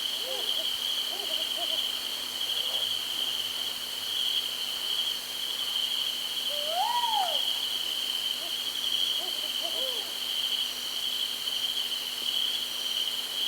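Night ambience sound effect: crickets chirring steadily, with a few short hooting calls and one louder call that rises and falls about seven seconds in.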